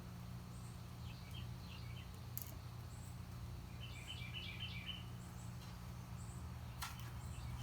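Quiet room tone with a steady low hum. Two short runs of faint high chirps, about one and a half and four seconds in, and two sharp clicks can be heard over it.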